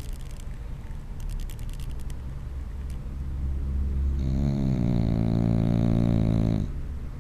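Bulldog snoring: a quieter low rumbling breath, then a long, loud pitched snore starting about four seconds in.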